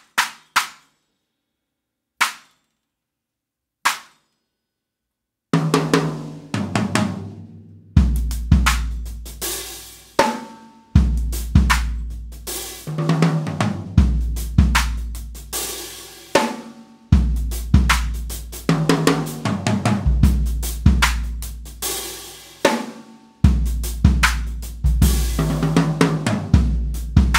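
Istanbul Agop clap stack cymbals struck on their own a few times, each a short, dry, sharp crack. About five seconds in, a full drum-kit groove starts: bass drum, snare and cymbal strokes in a steady repeating pattern.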